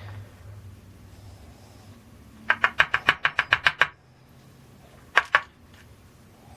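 A quick, evenly spaced run of about a dozen light clicks, then a single click a little over a second later, over a faint steady hum.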